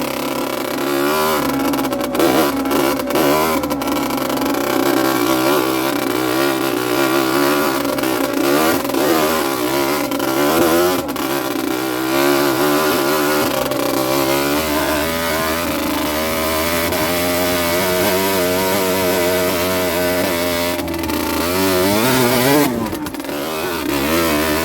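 Rieju Drac 50's small two-stroke engine being ridden, its pitch rising and falling with the throttle. A few sharp knocks sound in the first few seconds, and near the end the revs climb quickly and then drop off.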